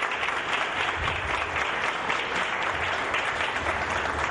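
A room of people applauding, many hands clapping steadily together.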